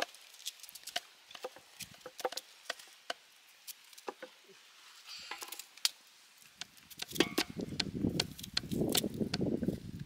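Knife chopping food against a board or bowl, irregular sharp knocks. About seven seconds in it gives way to a louder, denser rustling stretch.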